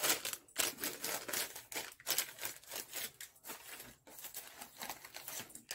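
Paper rustling and crinkling in irregular bursts as small paper gift bags are handled.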